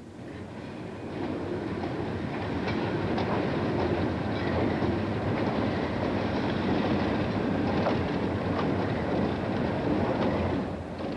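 Alco diesel road switcher passing with a passenger train: the diesel engine running and the wheels clicking over the rail joints, growing louder about a second in as the train comes by.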